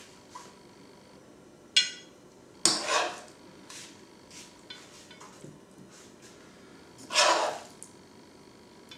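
A metal spoon and a metal ring mould clinking against a ceramic plate and a frying pan: a ringing clink about two seconds in, a louder clatter a second later, then a longer scrape near the end as the spoon scoops in the pan.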